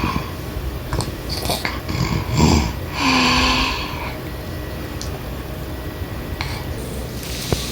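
An eight-month-old baby snoring in its sleep: a few short noisy breaths, the loudest about three seconds in with a low hum in it, then only a steady background hiss.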